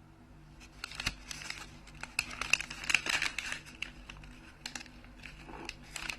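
Paper food packaging crinkling and rustling as it is handled, in a dense run of crackles about a second in that thins to scattered ticks after about four seconds.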